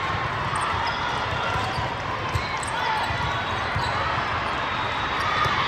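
Busy gymnasium noise during volleyball play: balls bouncing and thumping on the hard court over a steady chatter of many voices.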